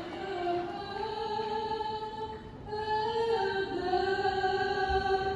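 A woman singing the closing phrases of the national anthem solo, holding long notes with a brief break about halfway through.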